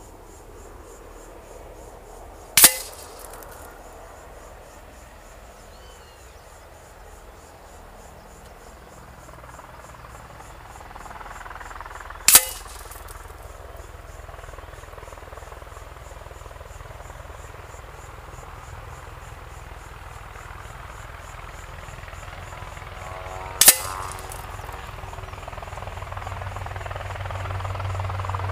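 Three sharp cracks, each with a short ringing tail, about ten seconds apart: 18.13-grain pellets from a PCP air rifle fired from 70 m striking the paper-and-cardboard target.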